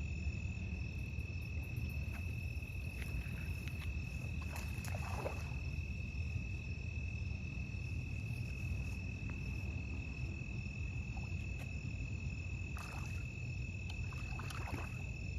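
Insects, likely crickets, make a steady, unbroken high-pitched trill over a constant low rumble, with a few faint brief sounds near the middle and the end.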